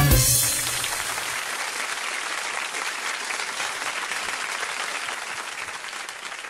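Applause starting as a live folk song ends, a steady patter of clapping that slowly fades over several seconds.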